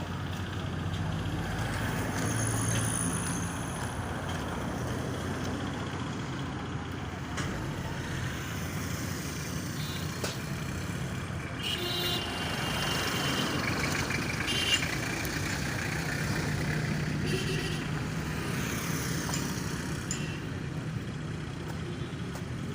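Steady vehicle engine rumble with traffic noise, and a few brief high-pitched tones a little past the middle.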